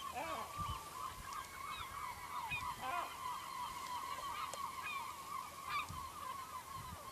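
A colony of seagulls calling all at once: a dense chorus of many overlapping calls, with sharper single cries standing out now and then.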